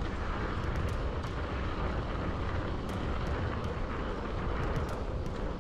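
Mountain bike rolling fast down a dirt trail: a steady rumble of tyres on the ground mixed with wind buffeting the microphone, with scattered small clicks and rattles.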